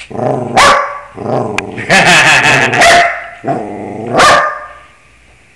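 A dog singing in a series of pitched, drawn-out barks, the longest stretch about two to three seconds in. It falls quiet near the end.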